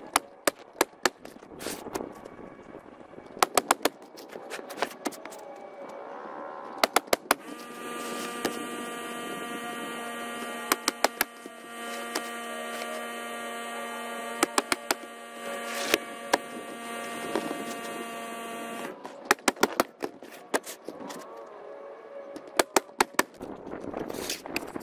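Ridgid 15-degree coil roofing nailer firing nails through asphalt shingles: sharp pneumatic shots in quick runs of several at a time, with pauses between runs. A steady hum runs underneath for about eleven seconds in the middle.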